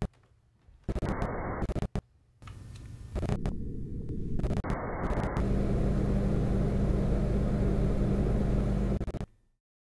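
Sound effect for an animated logo: choppy, filtered noise that cuts in and out abruptly for the first few seconds, then a steady low rumble with a hum that stops suddenly about a second before the end.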